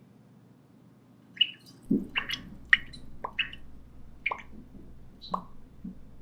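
A string of short, high squeaky chirps, irregularly spaced, starting about a second in. Several slide quickly down in pitch.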